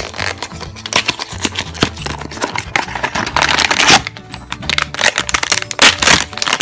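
Hands opening a small cardboard blind box and crinkling and tearing open the foil bag inside it, in irregular bursts that are loudest near the middle and near the end. Quiet background music plays underneath.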